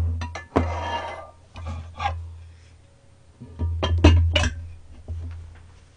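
A ladle knocking and scraping against a cooking pot, then a glass pot lid clattering onto the pot about four seconds in. It is a series of sharp clinks and short scrapes, each trailing a low hum.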